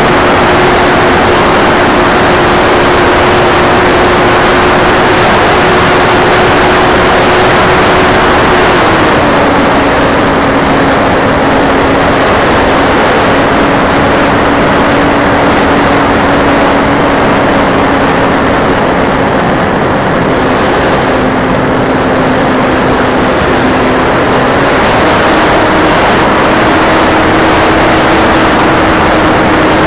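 Electric motor and propeller of an E-flite Timber RC plane running in flight, heard from a camera under its belly with loud wind rushing past. The motor's steady tone drops in pitch about nine seconds in and rises again about twenty-five seconds in.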